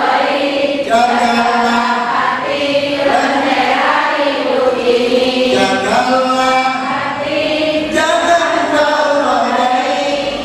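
A man's voice singing an Islamic devotional chant through a microphone and PA, in long held, wavering notes, a new phrase beginning every two to three seconds.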